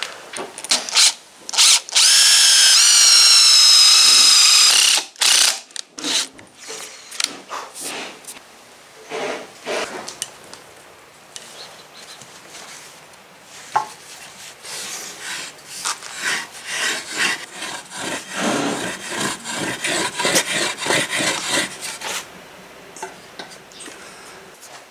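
Cordless driver spinning a plug cutter into a block of wood, a steady motor whine lasting about three seconds that rises slightly in pitch. Scattered knocks and scrapes of wood follow. Later comes a hand saw cutting the plugs free, about two strokes a second for several seconds.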